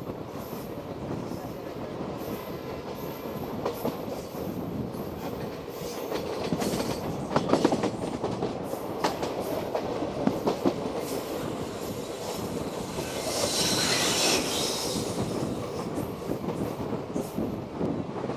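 Passenger train running on the track: a steady rumble with wheels clacking over rail joints and points, a burst of loud clacks about seven seconds in. About two-thirds of the way through, a louder hiss swells and fades away.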